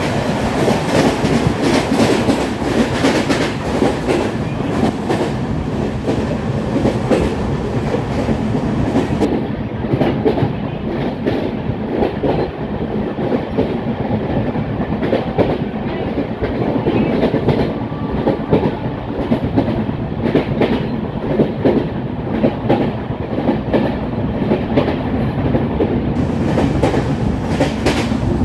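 LHB passenger coach running at speed, heard from its open doorway: a steady rumble of wheels on rail with a rhythmic clickety-clack of knocks, the beat of a wheel with a flat spot. The sound turns duller for a long stretch in the middle.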